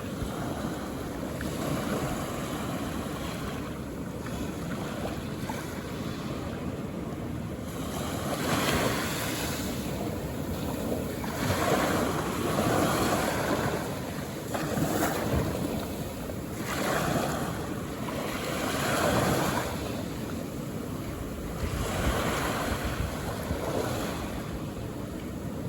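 Calm ocean waves washing onto a beach, the surf swelling and falling back every two to three seconds, with wind rumbling on the microphone.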